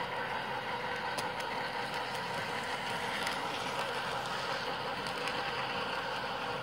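Steady running noise of O scale model trains on a large layout: electric motors and wheels on track, with a few faint clicks.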